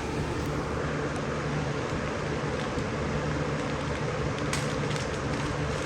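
Steady mechanical background whir with a low hum, like a running fan, and a few faint clicks about four and a half seconds in.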